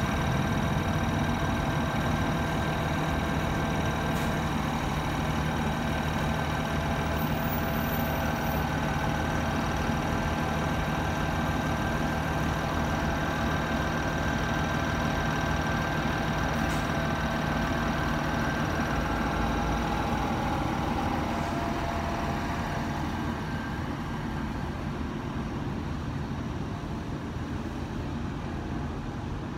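New Flyer diesel transit bus running close by, a steady engine rumble with several high whining tones over it. The sound fades in the last third as the bus moves away.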